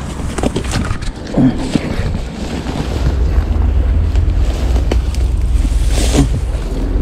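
Wind buffeting the microphone, a low rumble that grows stronger from about two seconds in, with footsteps and rustling through long grass.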